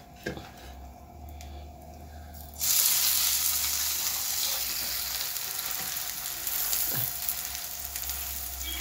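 Hot ghee in a frying pan starts sizzling suddenly and loudly as a folded pastry of ruqaq sheets is laid into it, about two and a half seconds in, then keeps frying steadily. Before that there are a couple of light knocks.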